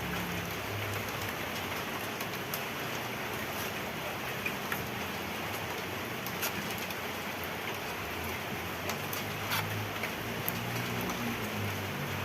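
Steady hiss of running or falling water, with scattered small splashes and drips.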